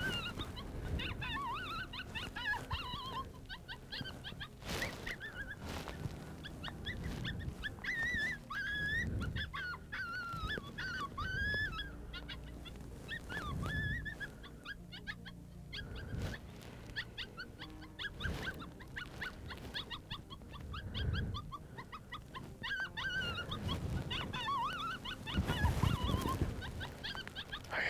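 Coyotes howling and yipping, several voices wavering and gliding up and down in pitch at once, in a group howl that fades for a few seconds in the middle and picks up again near the end.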